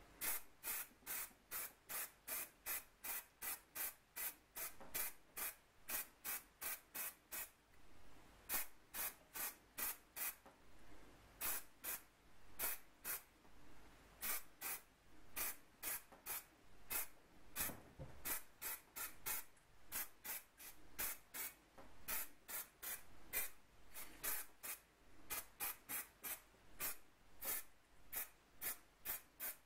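Aerosol spray paint can hissing in short repeated squirts, about two a second with a few brief pauses, as paint is sprayed onto metal parts.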